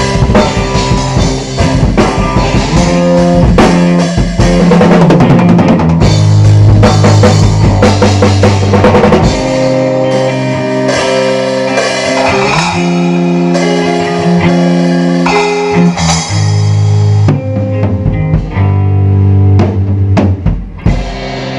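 Rock band playing an instrumental passage: guitar holding sustained chords over a full drum kit with kick drum and cymbals. The drumming and cymbal wash thin out about two-thirds of the way through.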